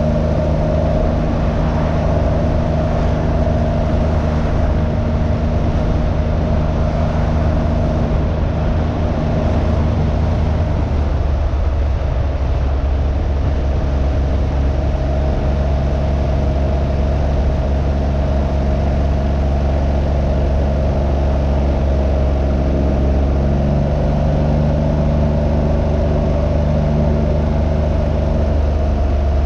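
Can-Am Ryker 900's three-cylinder engine running while riding, with wind noise over it. The engine note shifts about ten seconds in and again near the end.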